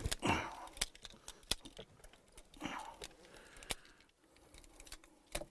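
Faint jingling of car keys with scattered light clicks as a driver handles the key at the ignition.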